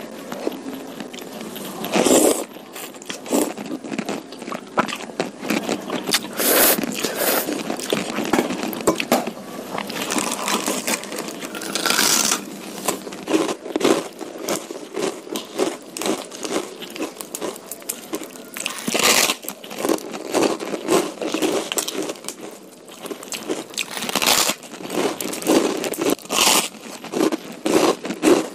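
Close-miked eating sounds of a person eating curry noodles and beef meatballs: steady wet chewing and mouth sounds, quick runs of several chews a second, broken by a few louder bites.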